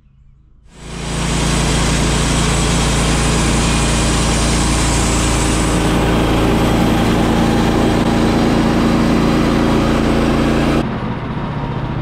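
Woodland Mills HM126 portable bandsaw mill sawing through a log: its engine running under load with the blade cutting wood, starting about a second in. Near the end the sound drops and turns duller as the blade finishes the cut, leaving the engine running.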